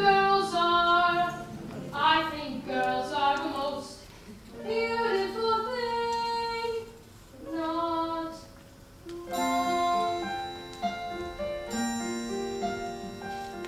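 A solo voice sings a musical-theatre song in short phrases over instrumental accompaniment. From about nine seconds in the voice stops and the accompaniment plays on alone in a run of struck, ringing notes.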